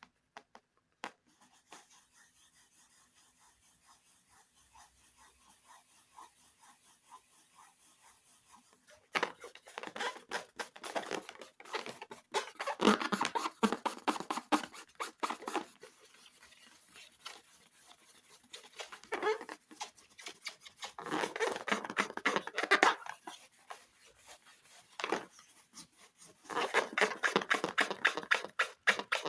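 Slime being squeezed and stretched by hand, giving bursts of sticky, crackling squelches and pops. The first several seconds hold only a faint hiss before the squishing starts, and it comes in several bouts with short pauses between.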